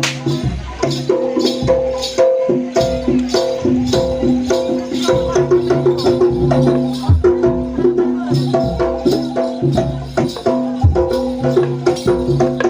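Javanese gamelan music for a jaranan dance. Tuned bronze metallophones and gongs ring in a fast, even rhythm, with low drum strokes underneath.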